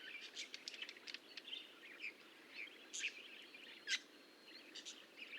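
Faint chirping of small birds: many short, high calls and twitters scattered throughout, with two louder sharp chirps about three and four seconds in.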